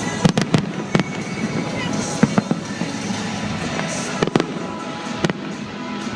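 Fireworks shells bursting in sharp bangs: a quick cluster in the first half second, then more every second or so, with another pair about four seconds in.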